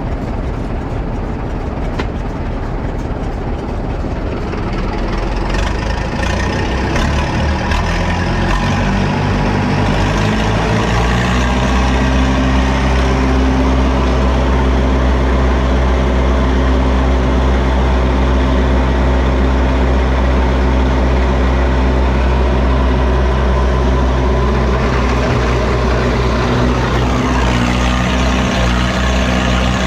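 Case 830 tractor engine driving a Gehl forage blower through the PTO, revving up about ten seconds in and then running steadily at speed.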